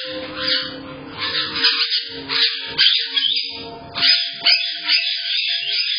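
Caiques chirping and squawking: a busy run of shrill calls with a few quick downward-sweeping whistles. It is heard through a security camera's small microphone, with the top end cut off.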